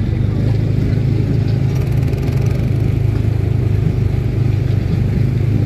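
Small gasoline engine of a Tomorrowland Speedway ride car running steadily under throttle, a constant low hum with no change in pitch.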